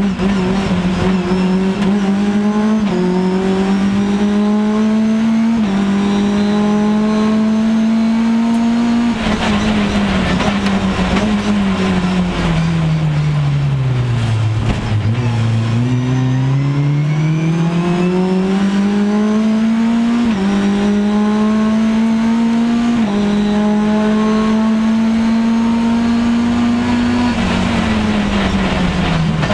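Mitjet race car engine heard from on board under hard racing: the engine note climbs and drops back at each upshift every few seconds, sinks low as the car slows through a corner around the middle, then climbs through the gears again and falls away near the end.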